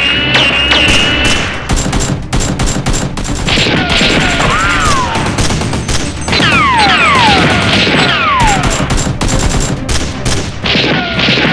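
Rapid bursts of gunfire-style shots, played over background music, with several falling whistling tones in the middle of the passage.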